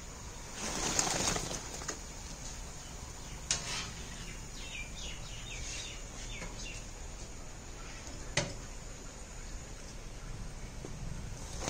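Outdoor ambience with a brief rustling, flapping burst about a second in, a few short bird chirps in the middle, and two sharp clicks.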